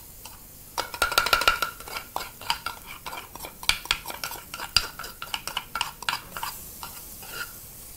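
Metal spoon scraping and knocking inside a wooden mortar to empty pounded garlic into a cooking pot: a quick run of clicks and taps lasting about five seconds, with a brief ring near the start, then only a few more taps.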